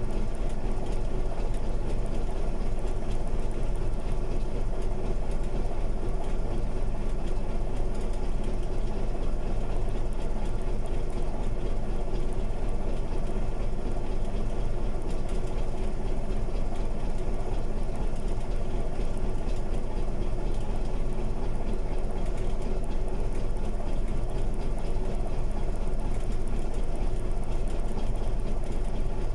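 Diesel engine of a crawler bulldozer idling steadily.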